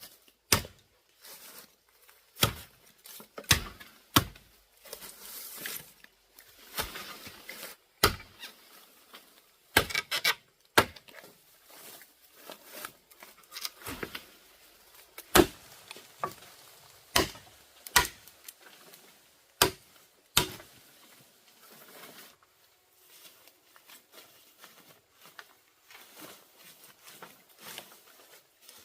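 A string of sharp knocks and thuds at an uneven pace, roughly one every second or two, with rustling and scraping between them; the knocks come less often in the last few seconds.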